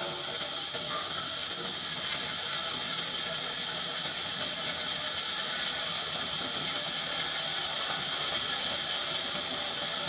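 Sawmill band saw cutting lengthwise through a large log: a steady hiss that holds without a break.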